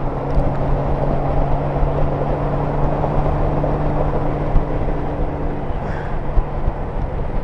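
Honda Goldwing GL1500 flat-six engine running steadily at highway cruise under heavy wind and road noise. The higher engine tone drops away about five and a half seconds in.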